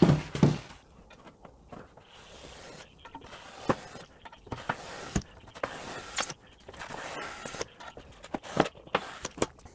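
A styrofoam box knocked down onto a workbench and shifted about, with light clicks as a metal square is set against it; in the last few seconds a utility knife scrapes and cuts into the expanded polystyrene foam.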